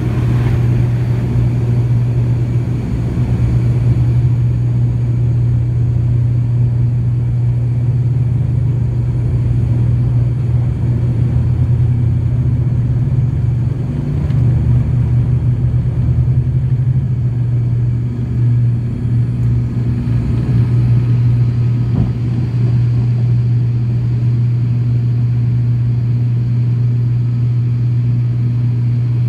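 ATR 42-600 turboprop's Pratt & Whitney PW127 engines and propellers at takeoff power, heard from the cabin beside the engine. A loud, steady, deep propeller drone with rumble carries on through the takeoff roll and into the climb.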